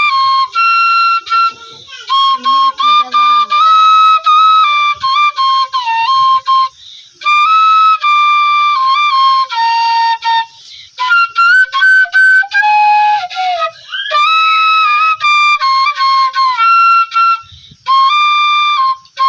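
Solo bamboo flute (bashi) playing a ringtone melody: high held notes with quick slides and ornaments, in short phrases with brief breaks between them.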